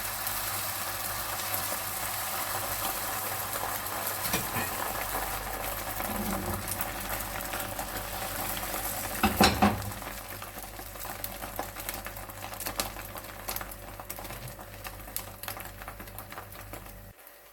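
Beaten egg sizzling in a hot oiled frying pan, with a brief clatter about halfway through. The sizzle slowly dies down to scattered crackles as the thin omelette sets.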